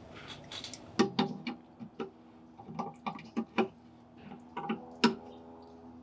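Irregular sharp metallic clicks and taps, about a dozen, the loudest about five seconds in: hands working the reinstalled valve and handle on an outdoor brass hose bib.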